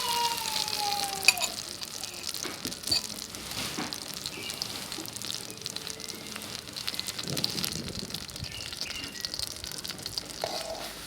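Salted-egg-yolk sauce sizzling and crackling in melted margarine in a frying pan, with a sharp clink about a second in.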